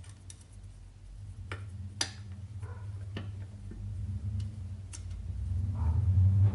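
Scattered small metallic clicks and ticks of hands fitting a split pin through the brake torque arm nut and bolt, a few separate clicks a second or more apart, over a low hum that swells near the end.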